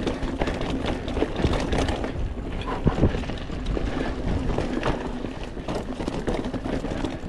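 Mountain bike ridden over rough, chunky trail: continuous tyre noise with frequent knocks and rattles from the bike as it goes over the bumps.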